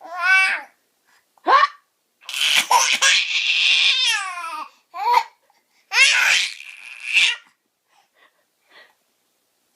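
Baby laughing hysterically in repeated bursts: high-pitched squeals and longer breathy laughs, with short pauses between them.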